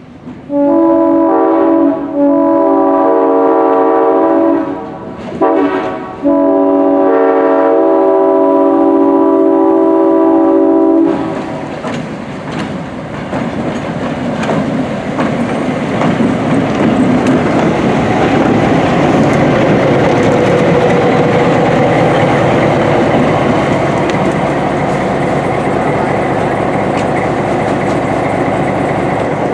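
A multi-chime railroad air horn sounding a chord in several blasts, the last and longest cutting off about eleven seconds in. A train then rolls on the rails: a steady rumble with clattering wheels that builds over a few seconds and holds.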